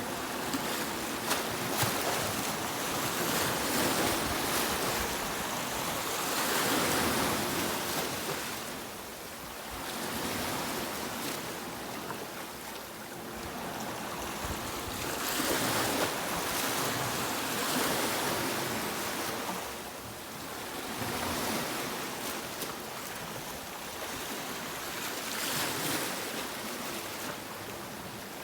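Sea waves breaking and washing up a beach, a continuous hissing surf that swells and ebbs every few seconds.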